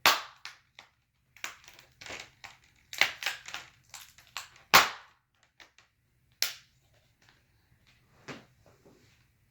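Plastic snap clips of a laptop's display bezel cracking and popping as the bezel is pried loose with a pry tool: irregular sharp cracks and ticks, the loudest about five seconds in.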